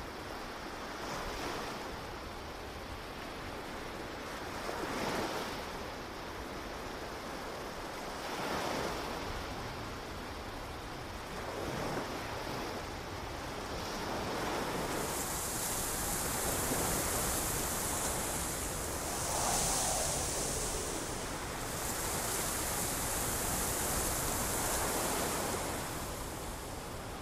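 Ocean surf washing onto a beach, swelling every three to four seconds. About halfway through a steady high hiss joins in, cutting out briefly twice.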